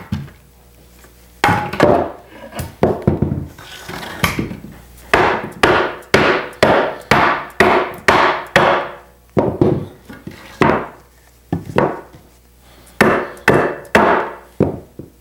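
Dead blow hammer striking an antique wooden chair frame to knock its doweled joints apart. It makes a long series of sharp knocks in runs of about two or three a second, with short pauses between the runs.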